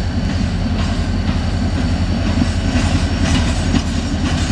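Diesel locomotives of a short local freight running as they shove a caboose along the track, a steady low engine drone with a fast pulse. Wheels click over rail joints, with a cluster of clicks about three to four seconds in.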